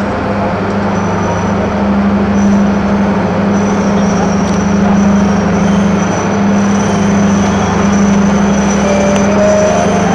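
Passenger train carriages rolling slowly along a platform: a steady low hum over the rumble of the wheels, with a faint high squeal coming in after a few seconds.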